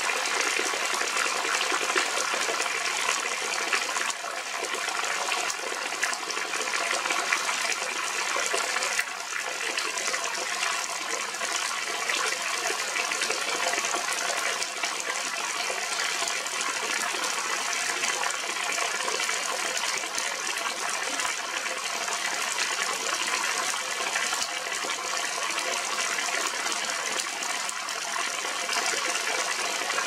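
Heavy rain falling steadily on a flooded field, an even, unbroken hiss.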